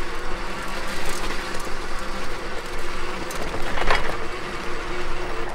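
Wired Freedom fat-tyre e-bike riding slowly over sandy, rocky ground: a steady motor whine under tyre and rattling vibration noise, with a sharper rattle about four seconds in. The rider takes the rattle for the thin metal fenders vibrating at their rack mount, not the motor.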